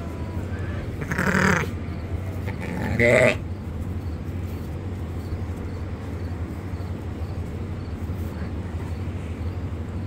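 Sheep bleating twice, a short call about a second in and another at about three seconds, over a steady low hum.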